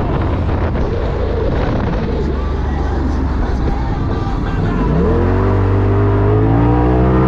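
Polaris RZR Turbo S side-by-side's turbocharged engine running under load with rough road noise, then about five seconds in revving up sharply and holding at high revs.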